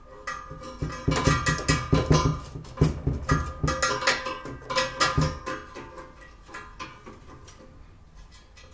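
Rusty steel C-channel bar clanking and knocking against a steel workbench top as it is moved and positioned, a quick run of metal knocks with ringing for several seconds, then quieter small metal handling sounds.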